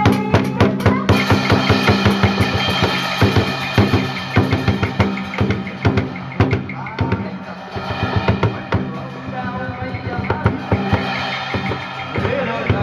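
Traditional water-puppet accompaniment music: fast, busy drum and cymbal strokes over sustained melodic tones, with a few sharp loud strokes in the first second.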